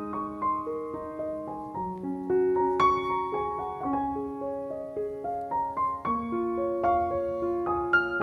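Background piano music: a melody of single struck notes over held lower notes.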